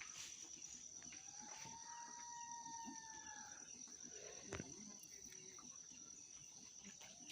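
An unidentified animal's long whimpering call, a thin whine that rises slightly and falls back over about two seconds; a second call begins near the end. A steady high insect trill runs underneath.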